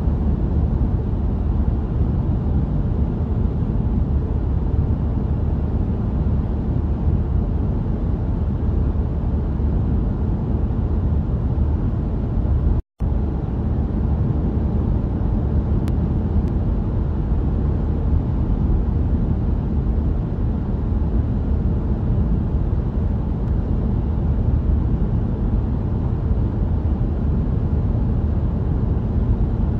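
Sound effect of a moving car laid over the picture in place of the real audio: a steady, even rumble of engine and road noise. It cuts out completely for a split second about thirteen seconds in.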